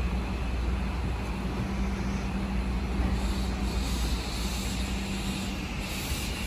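Shin-Keisei 8800 series electric train starting to pull out of the platform: a steady low hum from its equipment, with a higher whine building from about three seconds in as it gathers speed.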